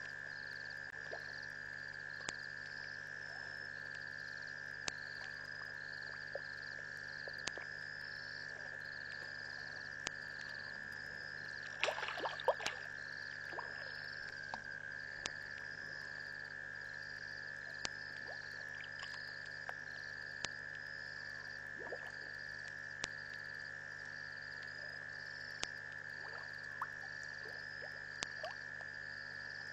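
Frogs calling at a waterhole at night: a steady high trill, with a higher pulsing call about once a second and sharp clicks at an even pace. A short flurry of louder calls comes about twelve seconds in.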